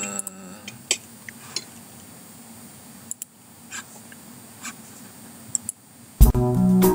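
Quiet room tone with a few scattered faint clicks and taps, then about six seconds in a song's keyboard music starts loudly with steady sustained notes.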